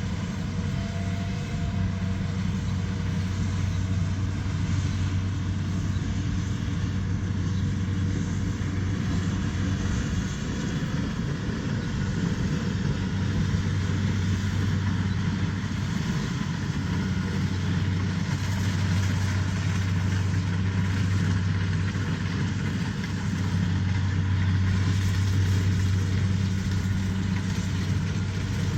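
A heavy machine's engine running steadily, a continuous low hum that eases slightly now and then.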